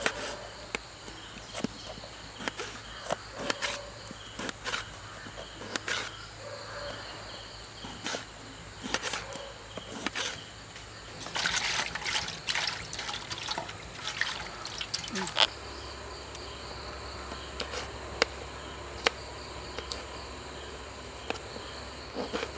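Scattered taps and clicks of hands working with utensils, with trickling water and a steady high insect chirring behind.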